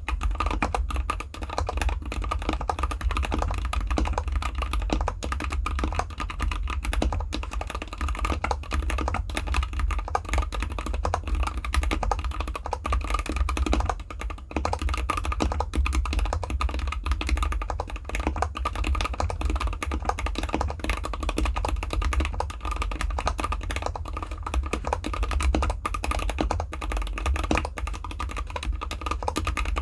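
Fast, continuous typing on a GK64X mechanical keyboard with factory-lubed Gateron Cap Gold linear switches, in an anodized aluminium case with dampening foam, typed on without a desk mat.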